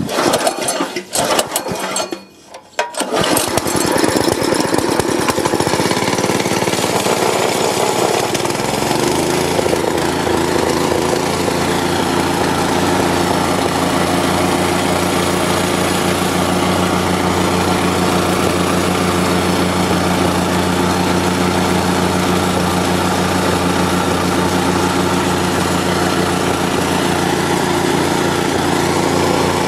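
Small single-cylinder four-stroke engine, a Honda GX160 copy on a plate compactor, catching after a few seconds of uneven starting noise and then running steadily. Its speed rises gradually for several seconds and then holds. With the low-oil sensor reconnected it keeps running without cutting out, so the sensor is not what was stalling it.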